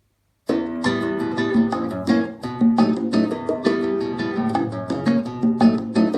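Music with a quickly picked plucked-string instrument, many short notes over held lower tones. It starts abruptly about half a second in.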